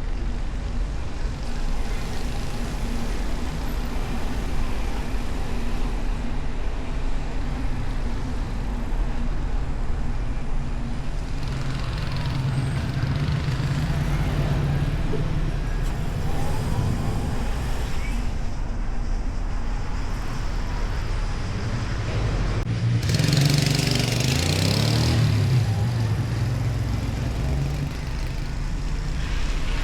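City driving sound from the car's hood: a steady low rumble of engine and road noise with traffic around. Another vehicle goes by louder about 23 seconds in, for about three seconds.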